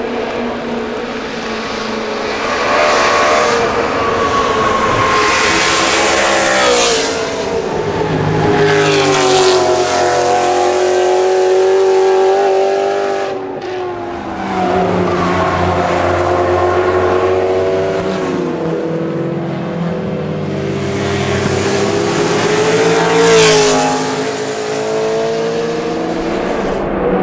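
Several racing cars passing one after another, loud engines revving up and falling back in pitch again and again through gear changes.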